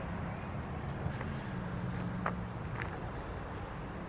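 Steady low rumble of outdoor ambience, with a few faint sharp clicks in the middle.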